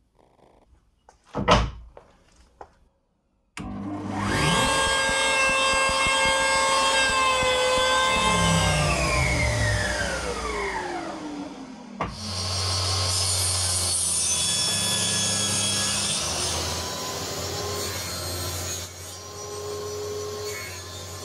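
A sharp knock, then a bench power saw spins up with a rising whine, runs while sawing wood, and winds down with a falling whine. A second stretch of the saw running follows, with a steady hum and hiss that drops lower near the end.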